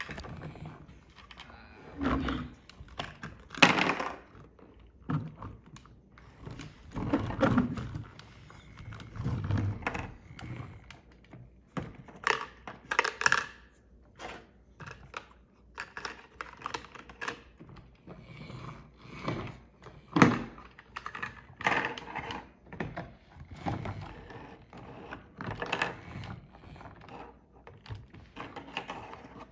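Irregular clicks, knocks and short rattles of toy construction trucks being handled and knocked together, with a few duller thuds in between.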